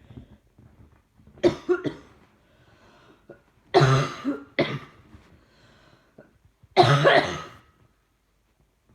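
A person coughing in three loud bouts, about a second and a half in, near four seconds with a second short cough right after, and near seven seconds. The coughs come from a chest infection.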